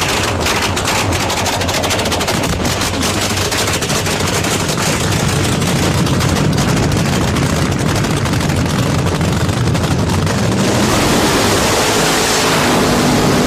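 Supercharged nitromethane V8 of a drag-racing funny car running at close range: a loud, fast crackling rattle like machine-gun fire. About ten seconds in it changes to a broader, smoother rushing roar as the car does a tyre-smoking burnout.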